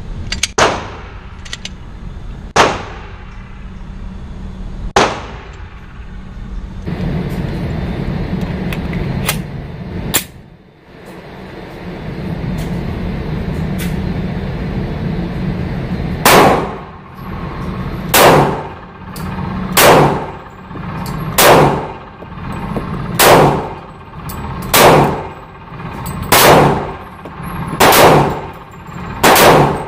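Glock 23 Gen4 pistol in .40 S&W firing: three shots in the first few seconds, then after a long pause a steady string of about nine shots, one every second and a half or so. Each shot cracks sharply and rings out in the hard-walled indoor range, over a steady low hum.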